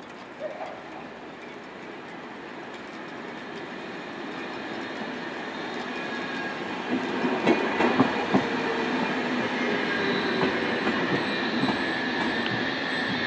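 SBB Re 460 electric locomotive leading a rake of IC2000 double-deck coaches approaching and rolling past, growing steadily louder. A cluster of sharp clacks comes about seven to eight and a half seconds in as the wheels cross rail joints, then the coaches run by with a steady high-pitched wheel squeal.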